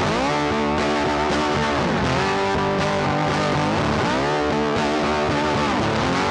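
Background rock music with a distorted electric guitar, its notes sliding and bending in pitch.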